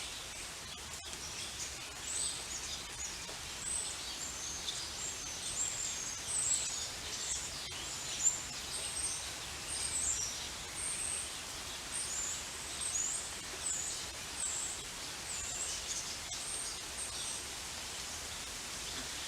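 Steady rain with many small birds chirping over it. The chirping starts about two seconds in and dies away near the end.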